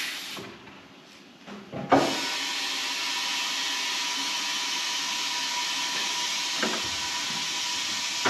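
Compressed air hissing from a tire changer's inflation hose into a car tire. The hiss drops away at the start, a click comes about two seconds in, then a steady hiss with a faint whistle runs as the tire is inflated.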